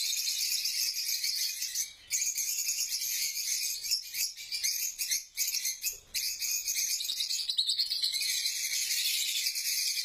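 A large flock of lovebirds chattering together: a dense, continuous mass of high, shrill chirps, with brief lulls about two seconds in and again around five to six seconds in.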